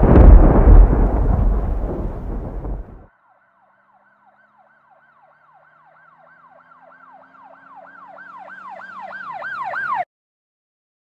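A loud rumble that cuts off about three seconds in, followed by an emergency vehicle's siren yelping fast, about four falling sweeps a second. The siren grows steadily louder for some six seconds over a low engine hum, then cuts off suddenly.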